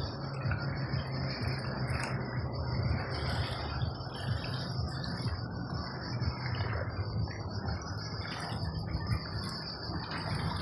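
A continuous high-pitched shrilling of insects, holding steady, over a constant rushing noise.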